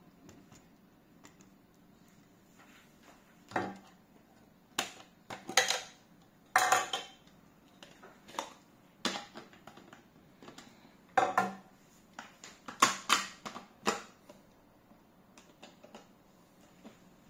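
Hard plastic parts of a vertical slow juicer knocking and clattering as the juicing bowl is handled and fitted back onto the motor base: about a dozen irregular knocks, starting about three and a half seconds in and dying away around fourteen seconds.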